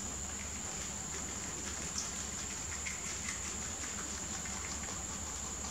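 Rabbits munching leafy greens: small, irregular crunching ticks of chewing and leaves being pulled, over a steady high-pitched whine.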